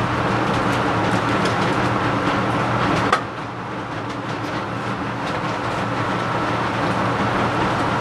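Laminar flow hood blower running with a steady fan hum. Light ticks and foil crinkles come as foil-wrapped agar jars are set down on the table, with a sharp knock about three seconds in.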